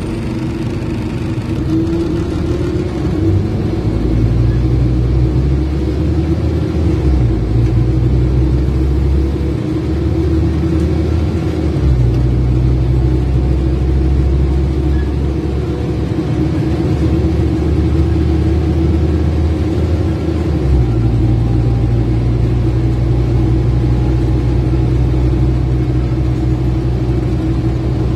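Scania N230UD OmniCity double-decker bus under way, heard from inside the cabin: its diesel engine drones steadily, the low note stepping up or down several times as engine speed changes, with road noise underneath.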